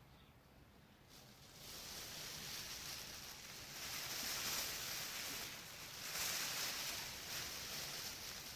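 Thin foil sheeting of an emergency foil tent crinkling and rustling as it is handled, starting about a second and a half in and swelling and easing in waves.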